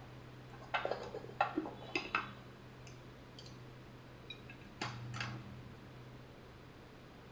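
A series of light clinks and clicks from small hard objects being handled, several in quick succession and then two more a few seconds later, over a steady low hum.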